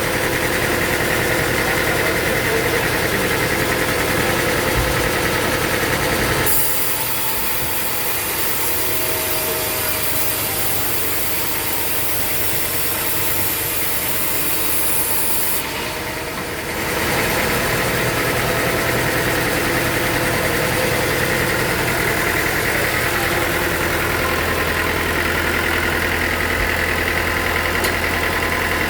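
A machine engine running steadily. About a third of the way in the sound changes to a high hiss with less low hum for several seconds, then the steady running returns.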